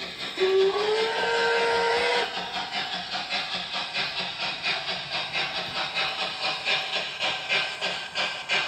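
O gauge MTH European steam locomotive model's onboard sound system: a whistle blast lasting under two seconds, rising slightly in pitch, then steady steam chuffing at about three beats a second as the locomotive runs.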